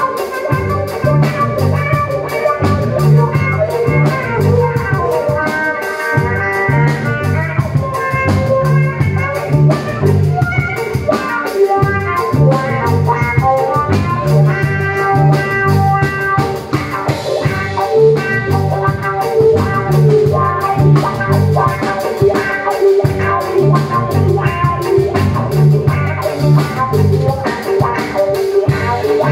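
Live violin and drum kit playing together: bowed violin melody over a steady drum beat, which drops out for a moment a few times.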